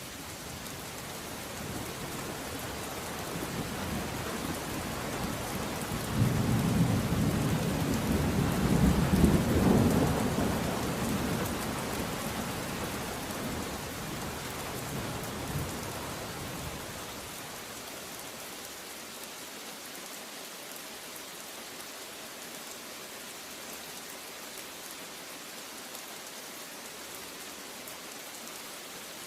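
Steady heavy rain with one long roll of thunder. The thunder builds over the first few seconds, cracks louder about six seconds in, peaks a few seconds later and rumbles away over the next several seconds, leaving only the rain.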